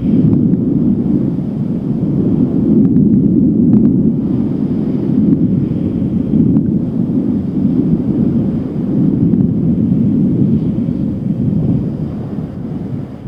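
Strong wind buffeting the microphone: a loud, steady low rumble that eases a little near the end.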